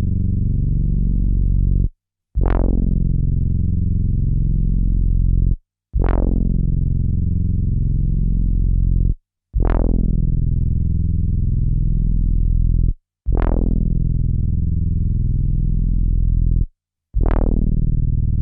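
A low synthesizer bass note played back over and over from an Akai MPC sampler. Each note starts bright, quickly turns dull and holds for about three and a half seconds, and a short silence separates each note from the next.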